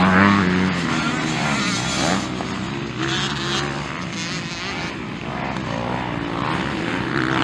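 Motocross bike engines revving on the track, the pitch rising and falling as the riders accelerate and back off.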